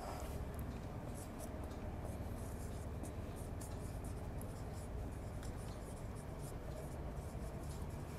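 Marker pen writing on a whiteboard: many short, quick scratchy strokes in an irregular run, over a steady low hum.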